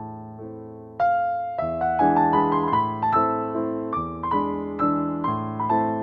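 Background piano music: a slow melody of single notes over chords, each note fading after it is struck, growing louder about a second in.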